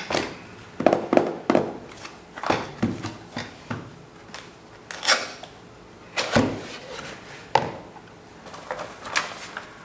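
Cardboard packaging being handled and opened: irregular thuds and knocks, with a couple of longer sliding, rubbing sounds as parts of the box slide against each other.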